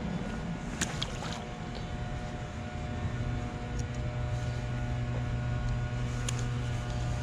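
A steady low engine hum, with a few short light clicks about a second in and again near the end.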